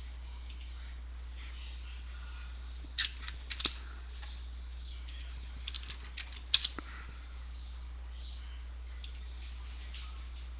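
A few scattered clicks and taps from a computer keyboard and mouse, bunched in two short runs, over a steady low electrical hum.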